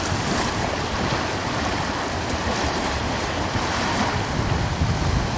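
Wind blowing over the sea with waves washing: a continuous rushing noise with a low, uneven rumble beneath it.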